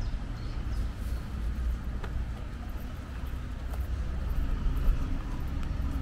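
Steady low outdoor rumble, with a few faint light ticks.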